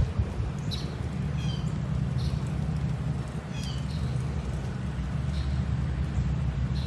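A bird chirping repeatedly, short high notes every second or so, over a steady low rumble. A sharp click comes right at the start.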